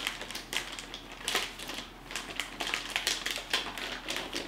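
A motherboard's metallised anti-static bag crinkling and crackling as it is handled and opened, in irregular sharp crackles.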